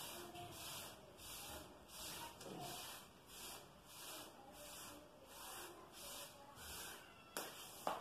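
A damp sponge scrubbing grey-tinted wall putty over a plastered wall, a faint rhythmic rasping about twice a second as it is worked in strokes to give a burnt-cement finish. Two sharp clicks near the end.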